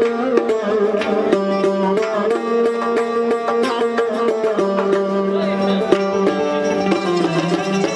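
Uzbek folk ensemble playing live: plucked long-necked lutes over a running beat of doira frame drums.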